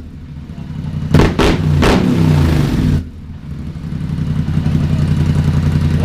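Polaris Scrambler XP 1000's twin-cylinder engine through an RJWC aftermarket exhaust, blipped three times in quick succession about a second in. The revs fall away and it settles back to a steady, low idle.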